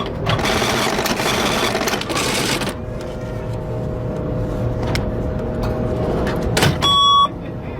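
Old cash register working: a dense mechanical rattle for nearly three seconds, then a few clicks over a faint steady hum, and one loud electronic beep near the end.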